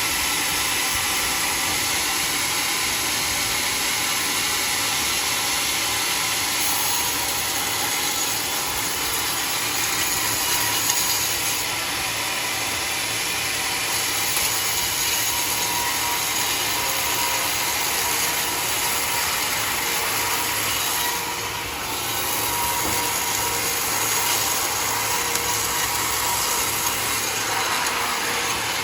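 Sawmill running, its blade cutting through mahogany with a steady mechanical noise and hum that eases briefly about three quarters of the way through.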